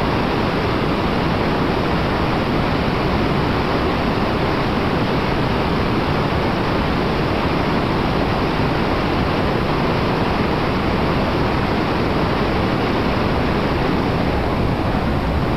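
Whitewater of a river running high, rushing steadily and loudly without a break.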